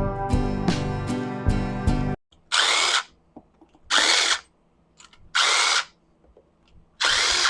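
Handheld power drill run in four short bursts of about half a second each, its motor spinning up each time. Acoustic guitar music plays first and stops about two seconds in.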